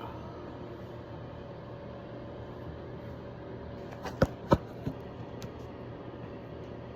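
Steady background hum, like an appliance or air conditioner running, with two sharp knocks about four seconds in and a couple of fainter clicks just after.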